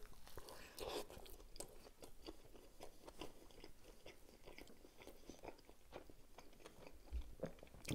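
Faint chewing of a mouthful of McDonald's Double Quarter Pounder: soft, wet mouth sounds with many small crunches and clicks.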